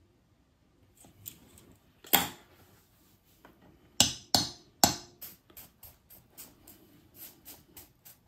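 Metal hand tools handled and set down on a workbench: a sharp knock about two seconds in, three louder clacks in quick succession around the middle, then a run of lighter clicks, about three a second.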